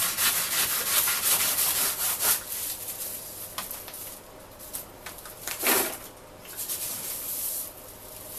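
A knife sawing through a tied bundle of fresh lemongrass stalks on a cutting board, in quick back-and-forth strokes for the first couple of seconds. After that come quieter rustles and scrapes as the cut pieces are handled, with one louder swish a little past the middle.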